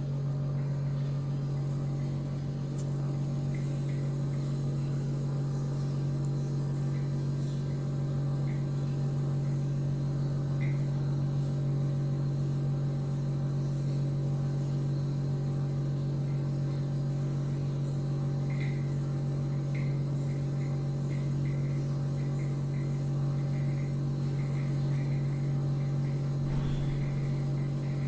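A steady low machine hum with no change in level, with faint short high-pitched blips in the second half.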